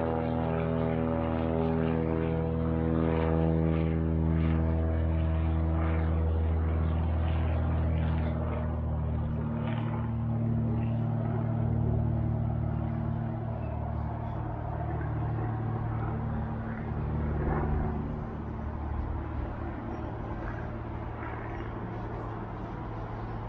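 Aircraft engine drone passing over, a steady pitched hum that fades away over the first ten seconds or so, leaving a fainter low drone.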